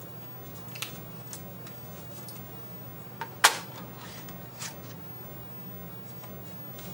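A floppy disk drive's door latch clicks open and a disk is pulled out, the sharpest click about three and a half seconds in, with a few lighter clicks and rustles around it. A steady low hum from the running computer underlies it.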